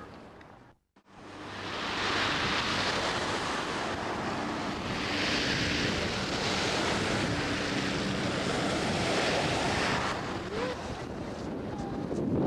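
Sea surf churning and breaking against a sea wall and groyne, an even rushing hiss mixed with wind buffeting the camcorder microphone. The sound drops out completely for a moment about a second in, at a tape edit.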